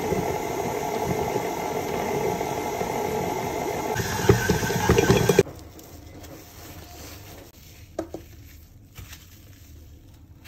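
Stand mixer running with its flat beater, cutting butter into flour for tart dough, with rattling and clatter in the bowl growing near the end; it stops abruptly about five seconds in. After that it is much quieter, with a few faint crinkles of plastic wrap as a hand presses the wrapped dough flat.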